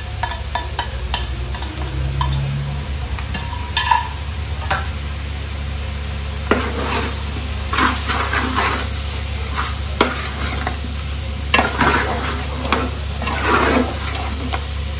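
A spoon taps and scrapes chopped coriander leaves off a plate into an aluminium pot, with a run of sharp clicks in the first few seconds. After that, a hand mixes masala-coated chicken pieces in the pot, making wet, irregular mixing sounds in bursts. A steady low hum runs underneath.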